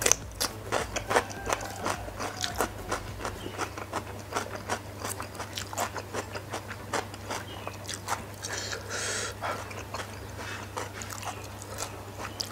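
Close-miked crunching and chewing of a fresh cucumber slice: crisp bites come thick at first, then thin out into steady chewing. A short hissing noise comes about nine seconds in.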